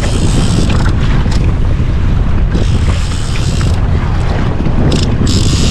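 Wind buffeting the microphone and water washing against a jet ski's hull. Three bursts of higher hiss come near the start, in the middle and near the end.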